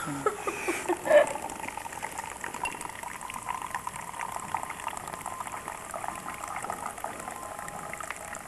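Liquid being heated, bubbling and crackling in a steady patter of small pops, with a brief clink about a second in.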